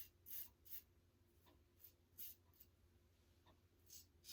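Faint, short scraping strokes of a Gillette Heritage safety razor cutting stubble on the face, eight or so quick irregular swipes.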